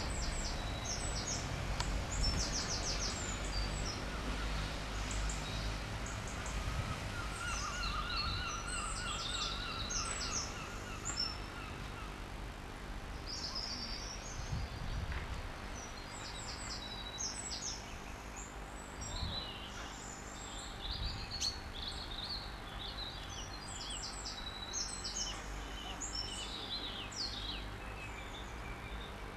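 Small birds chirping and twittering in repeated short bursts, with a trill a third of the way in, over a steady low rumble.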